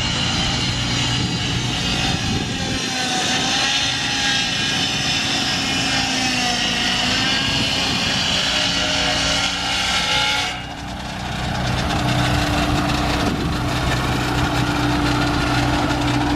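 An engine running, with a dense high-pitched noise over it that cuts off suddenly about ten seconds in, after which the engine runs on steadily with an even low hum.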